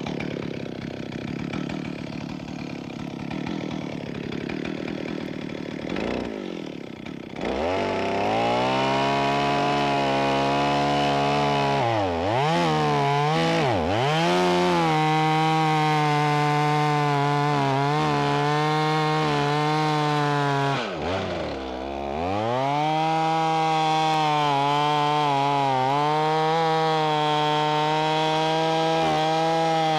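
Two-stroke chainsaw idling, then throttled up about seven seconds in and held at high revs as it cuts through a large downed log. The revs briefly drop and pick up again a few times before running steadily under load through the cut.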